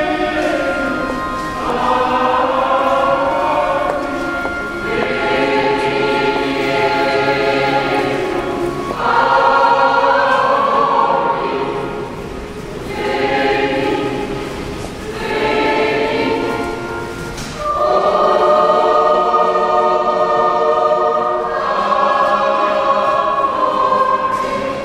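Choir singing a slow hymn in church, with long held notes in phrases separated by short breaths.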